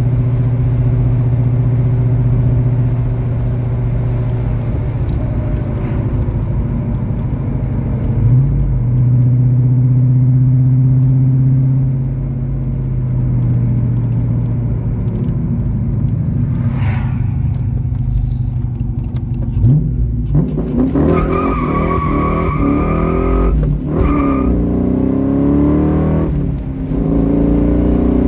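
1996 Ford Mustang GT's 4.6-litre V8 through a Magnaflow exhaust with an H-pipe, heard from inside the car: cruising steadily for about twenty seconds, then accelerating hard, the engine note climbing in pitch and dropping back at two gear shifts.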